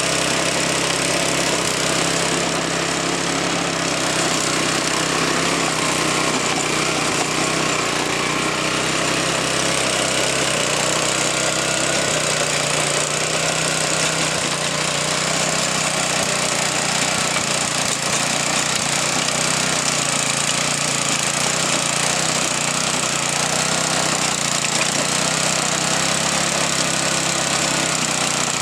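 Earthquake garden tiller's small gasoline engine running steadily as it works the soil.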